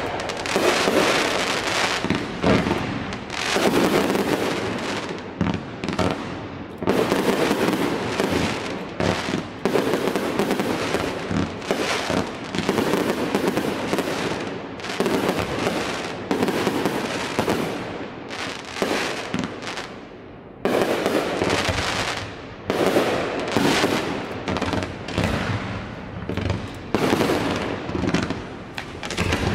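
Fireworks display: a dense, nearly continuous barrage of shells launching and bursting in quick succession. It eases off for a moment about twenty seconds in, then starts again sharply.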